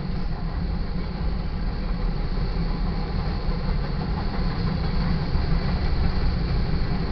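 Covered hopper cars of a freight sand train rolling past a grade crossing, a steady heavy rumble of steel wheels on rail.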